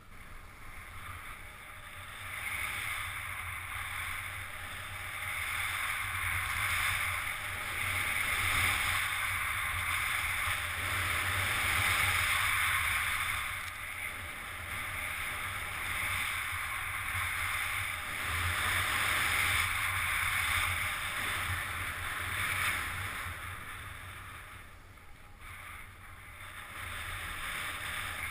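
Snowboard sliding and carving through powder snow: a steady rushing hiss that swells and eases with the turns, with wind rumbling on the microphone.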